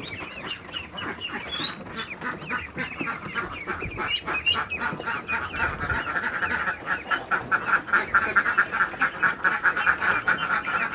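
A flock of young local Tasik laying ducklings peeping and calling together, a fast stream of short high calls that grows louder and denser about halfway through.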